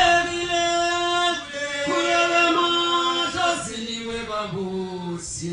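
Voices singing a chant in long, drawn-out notes, the tune stepping down to a lower pitch about two-thirds of the way through.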